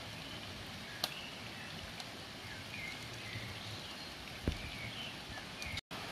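Steady patter of rain, with a few bird chirps over it and a single low thump about four and a half seconds in.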